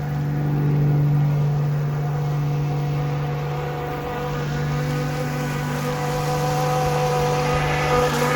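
Electric motor of a radio-controlled Pro Boat Shockwave 26 running steadily on the water, a held whine with small changes in pitch as the throttle shifts.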